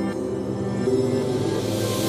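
Background music: held synth notes, with a swelling hiss rising near the end.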